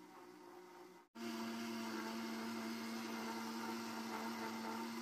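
Countertop blender motor running steadily at speed, whipping a liquid chocolate drink into a froth, with a steady hum and whine. It breaks off for an instant about a second in and comes back louder.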